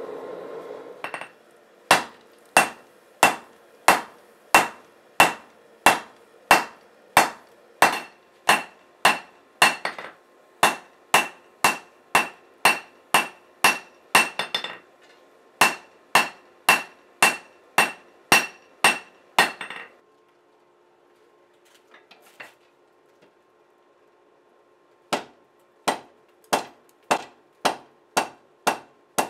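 A hand hammer strikes a hot 80CrV2 steel knife blade on an anvil, about one and a half ringing blows a second for some eighteen seconds. After a pause of about five seconds, the hammering starts again near the end. The clip opens with about a second of the forge running.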